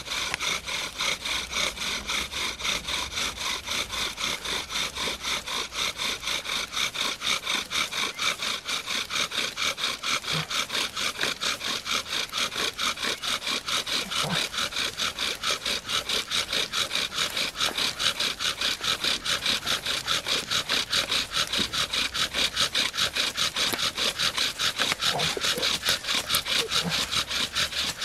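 Wooden spindle of a friction-fire drill rubbing back and forth in a soft-wood fireboard, about three strokes a second and growing a little louder toward the end, worked to build an ember.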